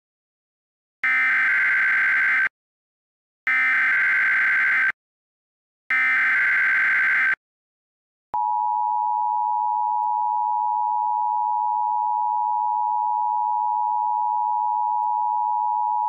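Emergency Alert System SAME header: three bursts of screeching digital data tones about a second apart, then about eight seconds in the steady two-tone EAS attention signal (853 and 960 Hz) sounds, marking the start of a tornado warning.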